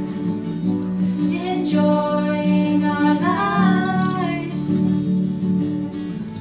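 A woman singing a melody over strummed acoustic guitars in a live acoustic duo performance.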